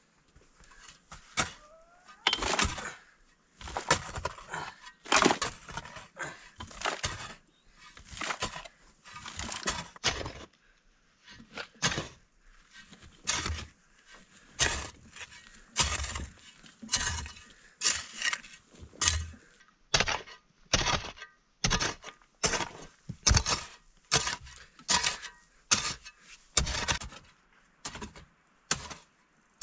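Repeated sharp cracking and breaking strokes with a dull thud in some, irregular at first, then settling to about one a second.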